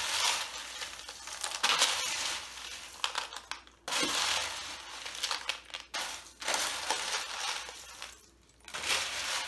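Buttered Chex cereal, Cheerios and pretzel sticks being stirred with a spoon in a disposable aluminium foil roasting pan: a crunching rustle of the dry pieces with the foil pan crinkling, in several spells with short pauses between them.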